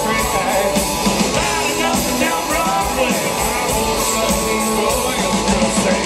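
Live country-rock band playing loud through a PA: electric guitars and a drum kit, with a woman singing lead.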